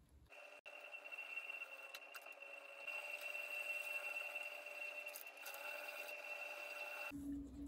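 A trimming tool shaving clay from a bowl turning on an electric potter's wheel: a steady scraping with a constant high whine under it. It starts abruptly just after the opening and cuts off shortly before the end.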